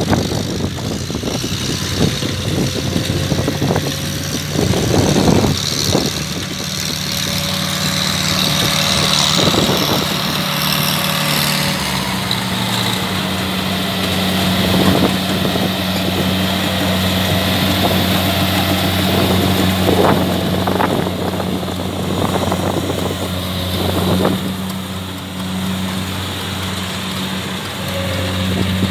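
Engine of farm machinery running steadily at a constant pitch, with scattered knocks and clatter over it.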